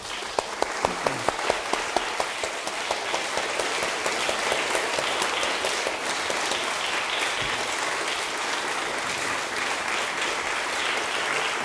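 An audience applauding steadily. Over the first two seconds one close clapper's loud, evenly spaced claps, about three a second, stand out above the crowd.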